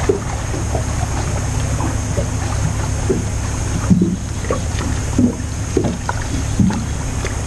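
Steady low rumble of wind and water around a small fishing boat, with a faint steady high whine and scattered light knocks and clicks as a small crappie is reeled in on a spinning rod.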